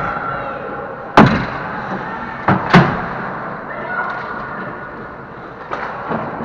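Sharp knocks of hockey sticks and puck in play around the goal: one loud crack about a second in, a quick pair of knocks near the middle, and lighter knocks near the end.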